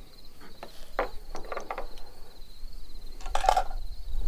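Metallic clicks and clacks of an AR-style rifle being handled at the bench: a few sharp clicks around a second in, then a louder clatter past the three-second mark.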